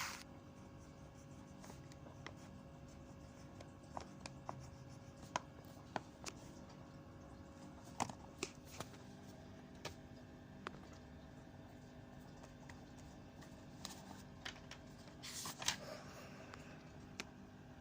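Faint room hum with scattered light clicks and taps: a sharper click at the start, single clicks every second or so, and a brief rustling cluster about fifteen seconds in.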